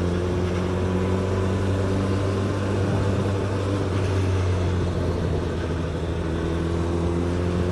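Onboard sound of a 2018 Suzuki GSX-S1000's inline-four engine running at a steady cruising speed: a constant engine note under wind noise.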